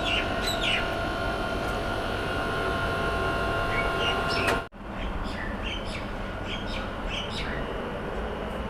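Small birds chirping in short calls over a steady background hum that carries a few constant tones. The sound drops out for an instant a little under five seconds in, then the chirping goes on over the same hum.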